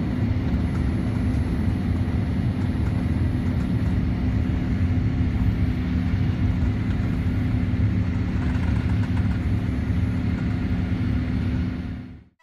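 Airliner cabin noise heard from a window seat: the jet engines and rushing air make a loud, steady drone with a constant hum through it. It cuts off abruptly near the end.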